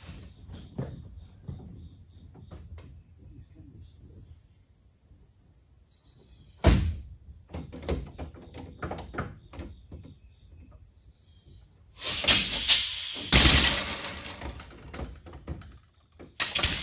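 Homemade compressed-air engine in a VW Beetle being tried out: clicks and knocks, then a sharp thump about seven seconds in. Loud bursts of compressed-air hissing begin about twelve seconds in and come again near the end, as the air engine runs with the car's emergency brake still on.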